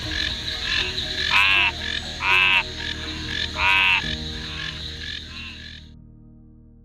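A frog calling: three loud, short calls, a second or so apart, over a steady background chorus that fades out about six seconds in.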